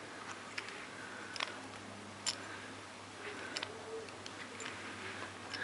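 Faint, irregular light clicks and ticks, about a dozen in five seconds, over a low steady hum.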